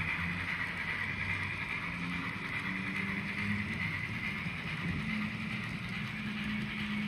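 N scale model freight cars rolling steadily along the track, a continuous whir of small wheels on rail.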